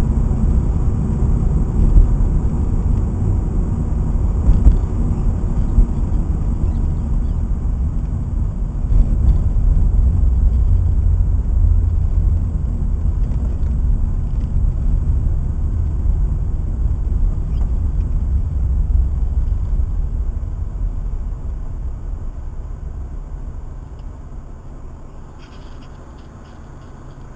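Subaru Impreza 1.6's flat-four engine and tyre rumble heard from inside the cabin while driving, a low steady rumble that fades away over the last several seconds as the car slows toward a stop, with a few faint clicks near the end.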